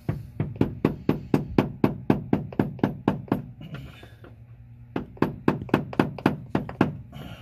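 Rubber mallet rapidly striking the handle of a screwdriver set against the fuel pump lock ring on a fuel tank, driving the stuck ring round to loosen it. The sharp knocks come about five a second in two runs, with a pause of about a second between them.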